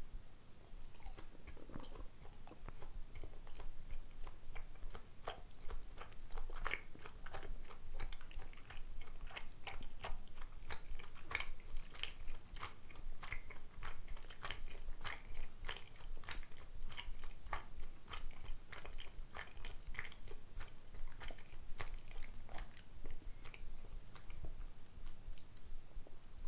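A person chewing dango rice dumplings: a long run of small sticky clicks, sparse at first and then steady at about two or three a second, over a constant low rumble.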